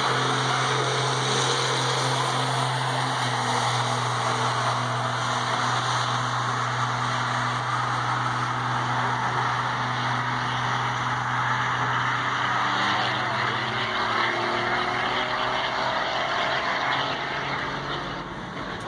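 Diesel pickup trucks racing down a drag strip, engines running hard under full throttle, the sound fading near the end.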